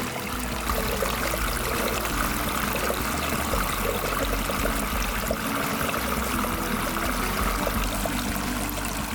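Water running steadily through a miniature model dam, a continuous stream-like flow.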